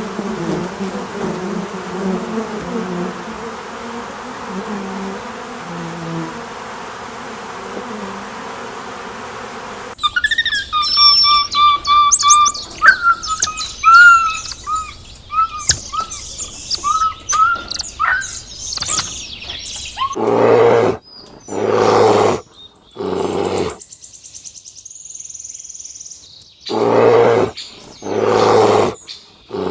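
A run of animal calls. First a low call over a steady rushing noise, then small birds chirping rapidly for about ten seconds, then about five loud calls roughly a second long each.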